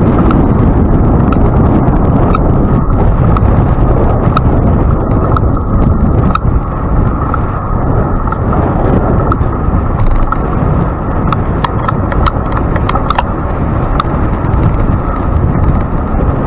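Wind buffeting the microphone of a bike-mounted camera while riding, a loud steady rumble, with scattered sharp clicks and knocks from the ride over the pavement.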